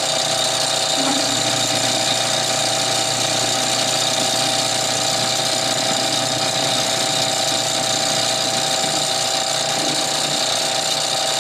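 A metalworking machine running steadily, with a constant whine and a few fixed tones, as the end of a steel DOM tube is flattened off.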